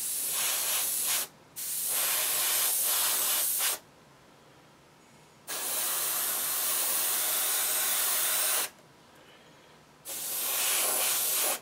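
Airbrush spraying metallic paint in four bursts of hiss, each one to three seconds long, cutting in and out sharply as the trigger is pulled and released.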